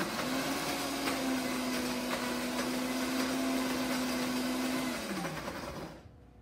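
Paderno 1500 W power blender blending a mango smoothie: the motor whine rises to speed, runs steadily with a dense whirr, then winds down in pitch about five seconds in and stops about a second later.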